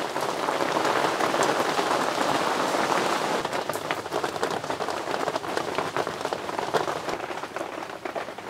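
Steady rain falling: a dense, even hiss with many small drop ticks, easing a little near the end.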